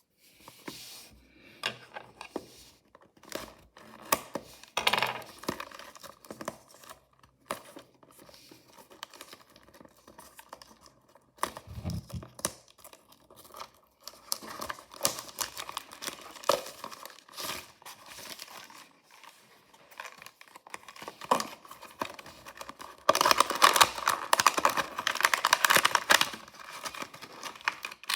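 Packaging of mystery miniature toy packs being handled, crinkled and torn open by hand: scattered crackles and clicks with a soft thump near the middle, then a stretch of dense, continuous crinkling for the last few seconds.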